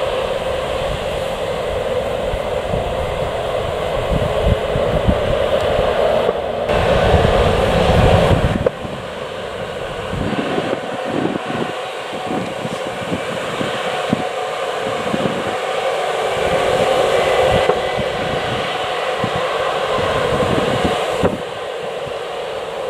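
Jet airliner engines running, a steady roar with a faint whine above it. Wind buffets the microphone in the first part. The sound changes abruptly a few times, as at cuts between shots.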